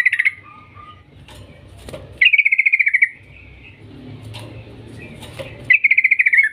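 Yellow-vented bulbul (trucukan) singing: short, loud, bubbling trilled phrases, each under a second and sliding slightly down in pitch, repeated about every three seconds.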